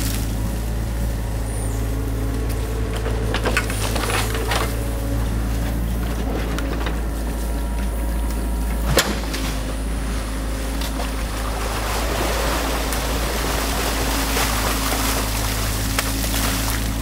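New Holland mini excavator's diesel engine running steadily while its boom and bucket work in a stream, clearing beaver-dam debris. A single sharp knock comes about halfway through.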